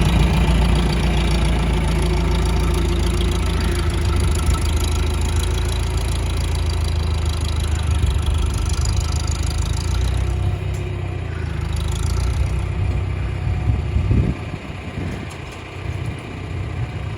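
Farm tractor engine running close by, steady and loud. It eases off after about ten seconds and drops lower about fourteen seconds in.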